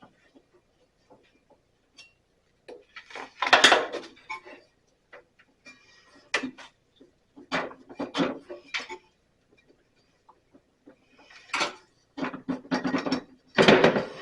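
Metal tools and parts clinking and clanking in irregular bursts as an Allen wrench works the bandsaw's motor-driven wheel loose, with louder clatters about three and a half seconds in and near the end.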